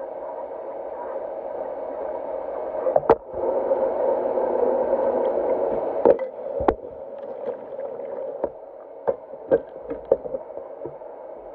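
Tap water running while a stainless steel pot and its steamer insert are washed, with sharp metal clinks and knocks as they are handled. The water runs louder from about three seconds in and eases off around six seconds, and the clinks continue after that.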